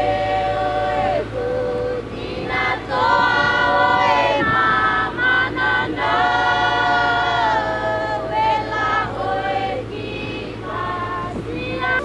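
A group of men and women singing together in chorus, holding long notes and moving between them as one, with a steady low vehicle hum underneath.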